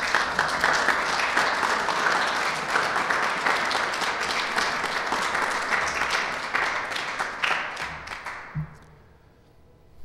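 Lecture audience applauding steadily after the talk ends, the clapping thinning and dying away about eight to nine seconds in.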